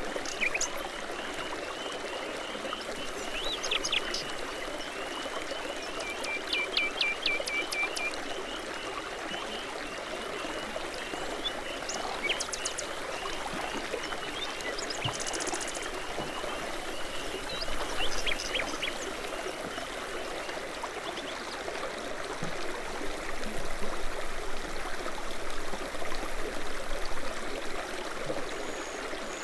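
Babbling brook running steadily over stones, with songbirds calling over it in short high chirps and trills, including a brief trill about six seconds in.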